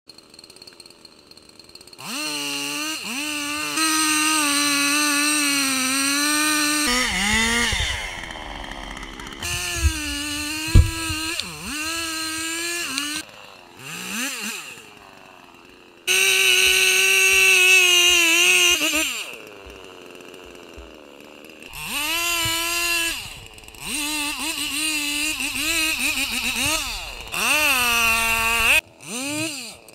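Husqvarna 390 chainsaw's two-stroke engine revving up and down in several bursts, its pitch dipping and recovering as it works, with quieter idling gaps between. A sharp thump about eleven seconds in.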